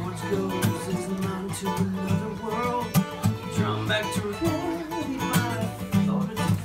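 Steel-string acoustic guitar played fingerstyle with a capo: picked melody and bass notes, with frequent sharp percussive strikes on the strings.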